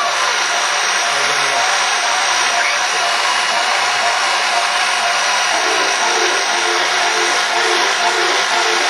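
Hedge trimmer running steadily, a loud, even buzzing hiss with no change in speed.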